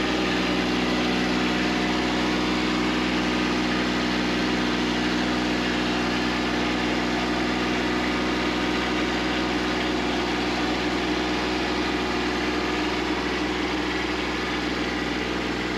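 Kubota B2601 compact tractor's three-cylinder diesel engine running steadily near idle.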